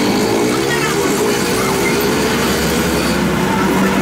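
An engine running steadily, its hum holding several steady tones.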